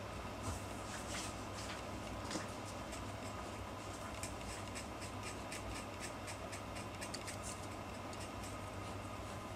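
Steel dip-pen nib scratching across manga paper in short inking strokes, with a quick run of strokes in the middle, over a steady low hum.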